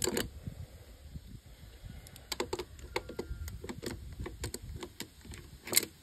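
Irregular sharp clicks and knocks of metal parts being handled while taking apart a washing machine motor with copper windings: one knock at the start, a quick run of clicks from about two seconds in, and a louder knock near the end.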